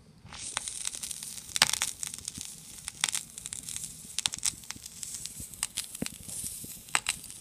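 Vinyl surface noise from a 45 rpm single on a turntable: a steady hiss, starting about a third of a second in, with irregular crackles and pops as the stylus tracks the groove before the music begins.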